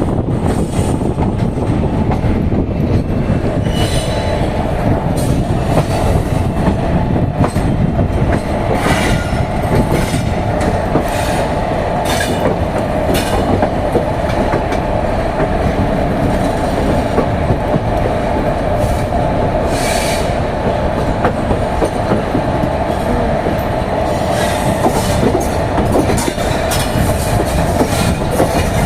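Train running on the rails: a steady heavy rumble with scattered clicks from the wheels over rail joints and a steady squealing whine from the wheels.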